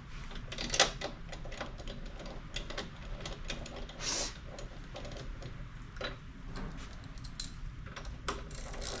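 Ratchet wrench clicking in short, irregular runs of ticks as a spark plug is turned into the engine head.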